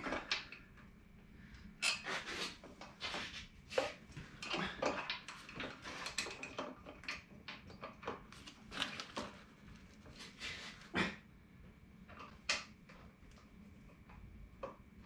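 Irregular metal clinks and scrapes as a part is worked by hand against the Detroit Diesel 6-71 engine, trying to make it line up. The knocking is busiest in the first two-thirds and thins out toward the end.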